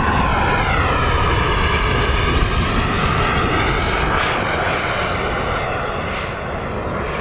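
Electric ducted fan of an RC MB-339 model jet whining steadily in flight as it passes by. Its pitch drops in the first second or so, then the whine eases slightly near the end.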